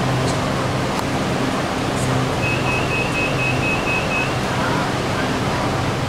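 BTS Skytrain train with a steady hum and rumble inside the carriage. About two and a half seconds in comes a run of about eight quick, even high beeps lasting roughly two seconds: the train's door-closing warning.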